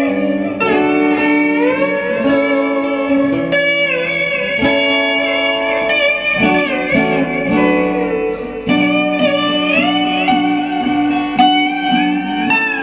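Instrumental music: a slide guitar plays a melody with many notes sliding up and down between pitches, over a steady, repeating chord accompaniment lower down.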